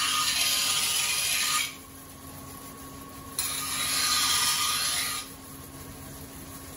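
Flat face of an Edo-style usuba kitchen knife's blade ground against a whetstone, evening out its high and low spots for a mirror finish. Two long grinding strokes: the first ends under two seconds in, the second runs from about three and a half to five seconds, over a steady faint hum.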